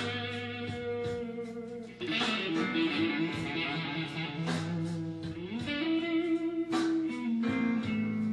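Fender Stratocaster electric guitar playing a slow blues fill of struck chords and ringing single notes, with a louder chord about two seconds in.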